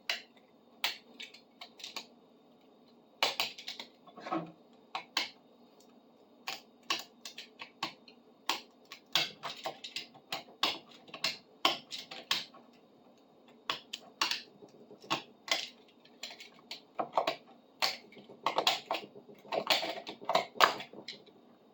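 Knife blade scraping and chipping dried PL 400 construction adhesive off a metal bar clamp: irregular short, sharp clicks and scrapes.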